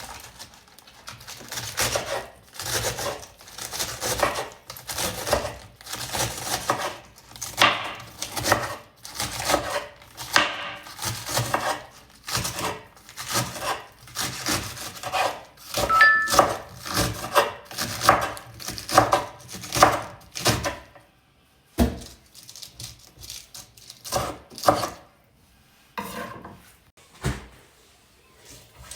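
Knife chopping on a wooden cutting board: a steady run of strokes, about two to three a second, that stops about three-quarters of the way through, followed by a few separate knocks.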